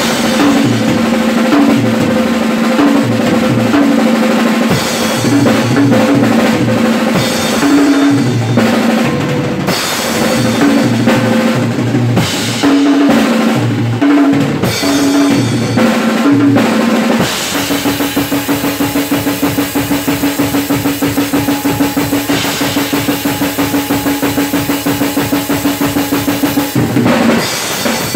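A drum kit played hard and fast: dense fills across snare, toms, bass drum and cymbals. About halfway through it turns into a fast, even run of strokes held for about ten seconds, then a closing fill.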